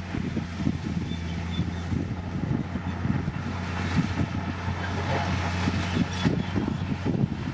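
Bulldozer's diesel engine running steadily with a low, even hum and an irregular low rumble.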